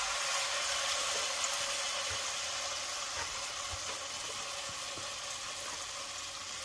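Pakora batter frying in hot oil in a steel karahi: a steady sizzle that eases slightly toward the end.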